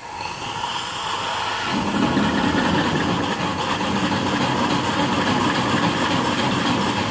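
A homemade steam donkey's twin steam engines starting up as the steam valve is opened: a hiss of steam starts at once, and about two seconds in the engines begin running slowly, with their cylinder drain cocks still open and blowing steam.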